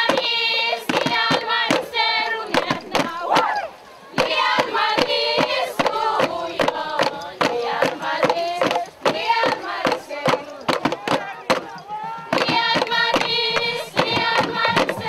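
A group of voices singing a traditional dance song, with a steady beat of sharp percussive strikes under it. The singing breaks off briefly about four seconds in and again near nine seconds.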